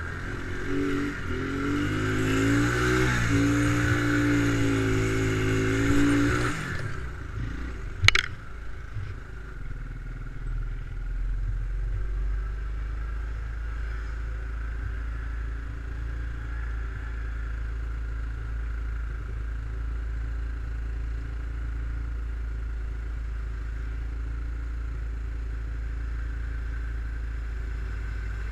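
ATV engine revving with wavering pitch for the first several seconds, then cutting back. A sharp knock comes about eight seconds in, after which the engine settles to a low, steady idle.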